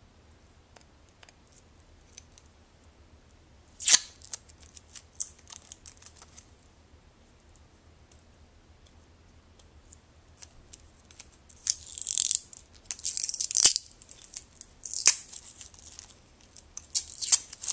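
Clear plastic film being peeled and crinkled off a phone wall charger, with a sharp click about four seconds in and bursts of crackling near the end.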